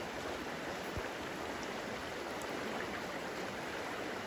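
Shallow river running fast over riffles: a steady rush of flowing water.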